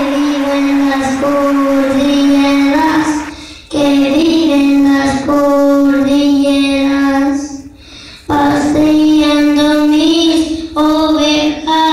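Children singing a Spanish-language song, holding long steady notes in phrases, with short breaks between phrases about three and a half and eight seconds in.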